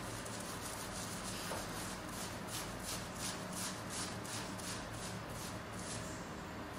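Fingers scrubbing a shampoo-lathered scalp: foam squishing and rustling in quick, even strokes, about three a second, clearest in the middle of the stretch, over a steady low hum.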